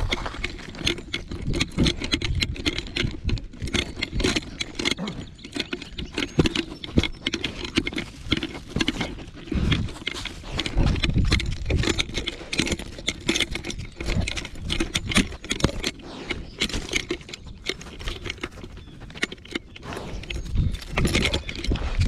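Rattling and jangling of metal collar hardware right at a collar-mounted camera as a Weimaraner moves along, with the jostling knocks of the camera mount and paws on gravel. It is a constant, irregular clatter of quick clicks and knocks with no break.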